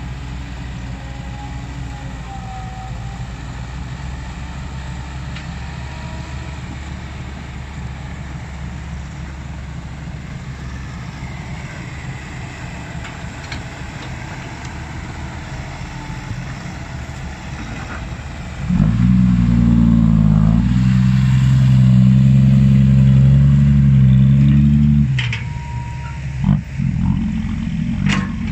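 Komatsu hydraulic excavator's diesel engine running steadily. About two-thirds of the way through it suddenly gets louder and higher in pitch under load for several seconds, then eases back, with a few sharp knocks near the end.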